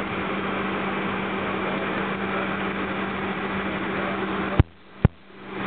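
Boeing 757 jet engine noise heard inside the passenger cabin: a steady hiss with a constant low hum. About four and a half seconds in it is broken by a couple of sharp clicks and a sudden drop in level.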